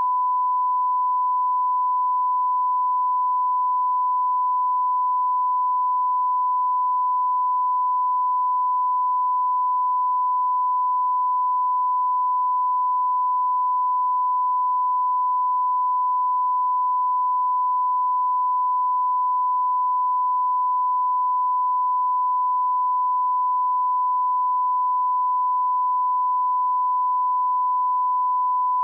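Broadcast bars-and-tone line-up tone: a single steady, unbroken pure tone, the reference tone that goes with colour bars at the head of a TV programme tape.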